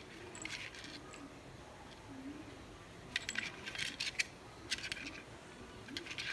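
A small bell jingling in short bursts of light metallic clinks, four clusters in all, as a kitten paws at a toy ball.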